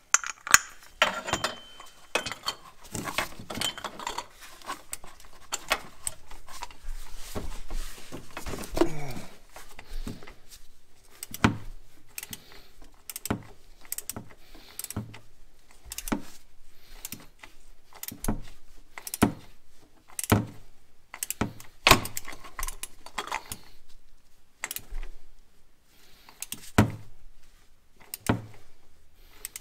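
Metal tools clinking as a 7/8-inch socket and torque wrench are fitted to a cap-type oil filter wrench, then short sharp clicks about once a second as an inch-pound torque wrench, set to 216 inch-pounds, ratchets the spin-on oil filter tight.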